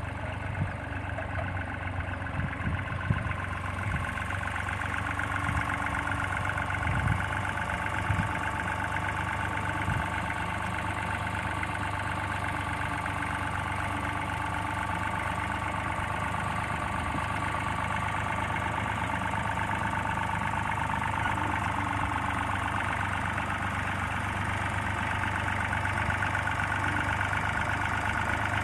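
Small red diesel farm tractor's engine running steadily at low revs as it drags a tined implement through cut grass. A few short low thuds come in the first ten seconds.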